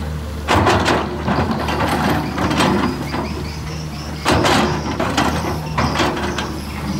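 Komatsu PC210 hydraulic excavator working: its diesel engine runs steadily while the bucket digs into soil, with several bursts of metallic clanking and scraping from the bucket and its linkage, the loudest about half a second in and about four seconds in.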